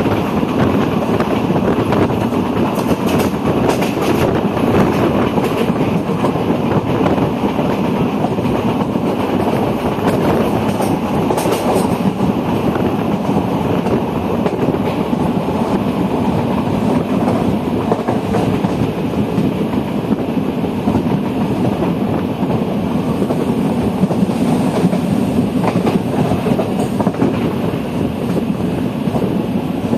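Express passenger train coach running at speed, heard from an open doorway: a loud, steady noise of the wheels on the rails mixed with rushing air, with faint clacks over the rail joints.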